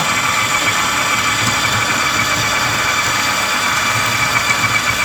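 Electric anchor winch running steadily as it hauls the anchor up, a continuous motor whine with a high steady tone.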